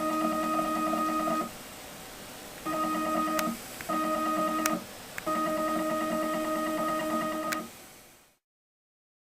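CNC machine's axis motors making four short moves, each a steady pitched whine of one unchanging tone lasting one to two seconds, with brief pauses and a few clicks between them; the last and longest move stops a little before the end.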